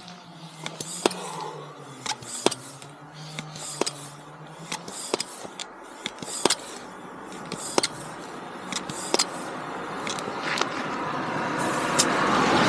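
Manual tyre pump inflating a punctured motorcycle tyre: a short hissing stroke about every second and a half, each with a sharp click. Near the end a passing vehicle grows louder.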